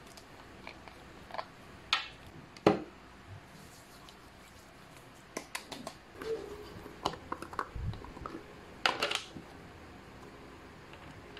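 A plastic cream jar being handled: short clicks and taps, then a run of small scraping and clicking sounds as its screw cap is unscrewed and the inner lid lifted off.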